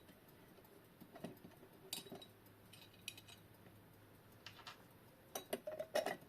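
Light clicks and taps of small metal parts being handled as a quartz clock movement is worked loose from its porcelain case. The taps are scattered at first, with a quicker cluster of sharper clicks near the end.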